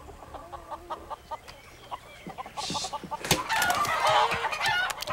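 Chickens clucking in short repeated calls, growing louder and busier about three seconds in.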